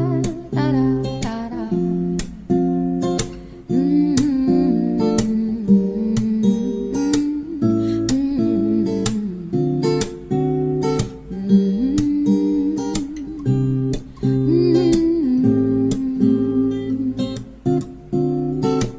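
Background music: an acoustic guitar plucking and strumming a gentle tune.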